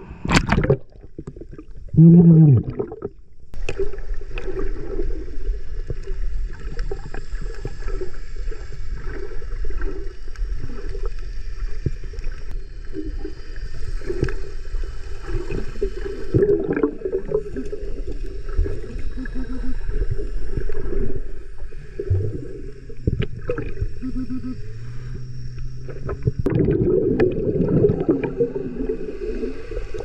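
Splashing at the sea surface. About three seconds in the camera goes under water, and from then on there is a steady muffled underwater rushing with gurgling and small clicks and knocks.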